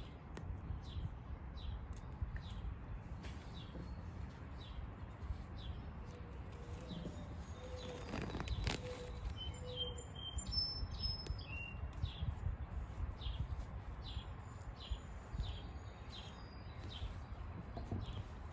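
A small bird chirping over and over, about two short chirps a second, with a few higher whistled notes partway through, over a low rumble of outdoor background noise and a few brief knocks.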